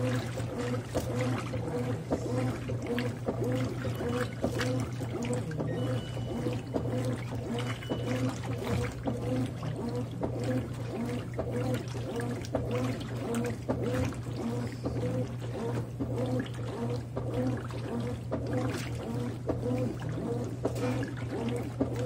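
Consul 13 kg top-load washing machine agitating a full tub of water and towels: a steady hum under rhythmic sloshing and swishing of the water.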